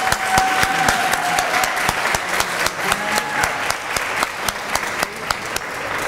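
Audience applauding: many people clapping steadily.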